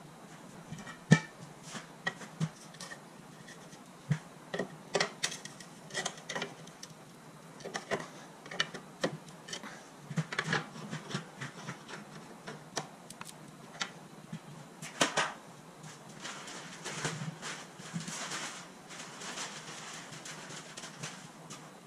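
Steel pry bar clanking and knocking against the lower control arm mounting brackets on a car's front subframe as they are pried open, a string of sharp metal knocks with a longer scraping stretch near the end.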